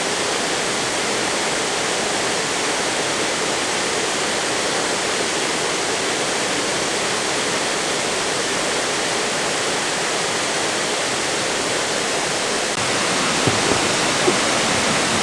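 Waterfall: a steady, dense rush of falling water that gets a little louder near the end, with a few faint clicks.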